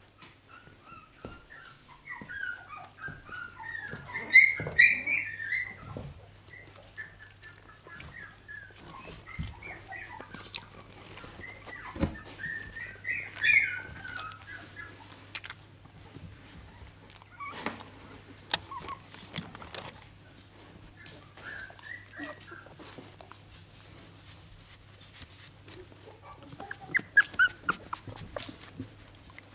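Young Finnish Lapphund puppies, a few weeks old, whimpering and squeaking in several short bouts, with rustling and small knocks from movement on the bedding between them.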